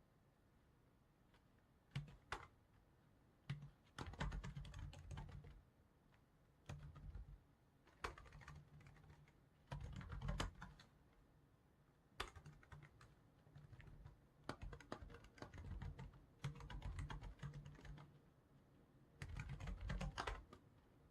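Typing on a computer keyboard: runs of key clicks in short bursts, broken by brief pauses. It starts after about two seconds of quiet.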